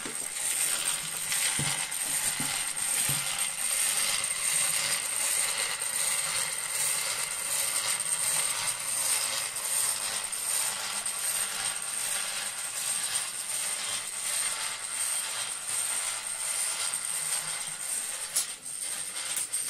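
Wilesco toy steam roller's small steam engine and gear train running steadily, a fast, even mechanical chatter of rapid clicks with a thin high hiss over it.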